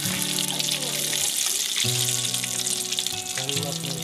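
Fish deep-frying in hot oil, a steady crackling sizzle, with background music playing under it.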